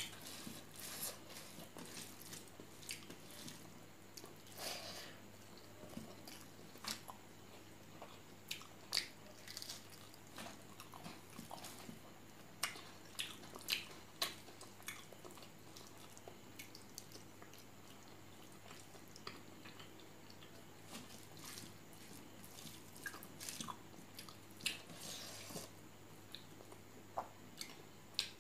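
Close-up mouth sounds of eating pork curry with rice: wet chewing and lip smacks in irregular clusters, thinning out for a few seconds around the middle.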